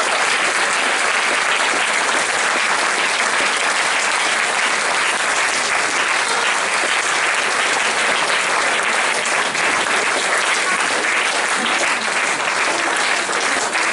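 Theatre audience applauding, many hands clapping steadily, thinning a little near the end.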